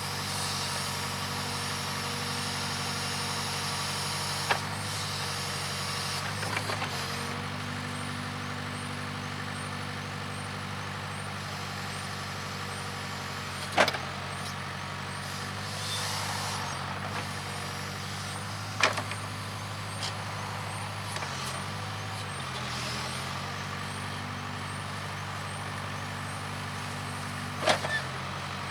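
Case 580K backhoe's diesel engine running steadily under load, its pitch dipping briefly a few times. Four sharp knocks come over it, the loudest about halfway through.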